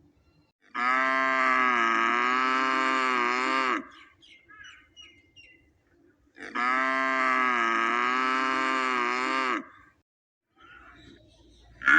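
A calf mooing twice: two long, fairly high-pitched calls of about three seconds each, with a pause of a few seconds between them.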